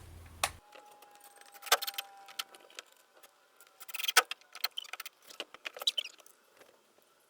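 Light metallic jingling and clicking, with small rattles scattered unevenly across several seconds.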